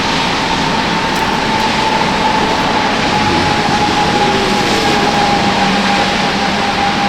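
A steady rushing noise with a thin high whine held throughout, sinking slightly in pitch, and a low hum joining in the second half.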